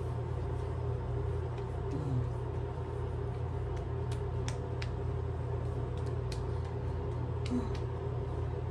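Bathroom ventilation fan running with a steady low hum, with a few light taps of hands patting skin.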